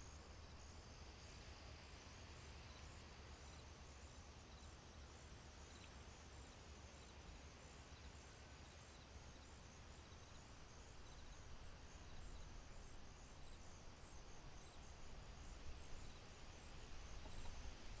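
Very faint outdoor nature ambience: a steady low hiss and rumble with small high chirps repeated throughout, a little louder near the end.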